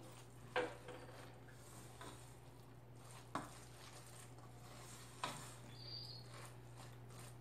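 Rice and fish mixture being mixed by hand in a stainless steel bowl: faint stirring and squishing, with three short knocks against the bowl spread through, over a steady low hum.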